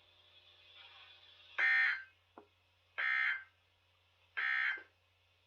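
NOAA Weather Radio's SAME end-of-message data signal: three short bursts of warbling digital tones, about a second and a half apart, marking the end of the weekly test broadcast.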